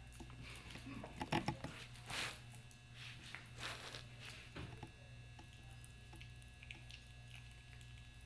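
Faint, scattered crunches and clicks of a piglet chewing dry cereal, over a low steady hum.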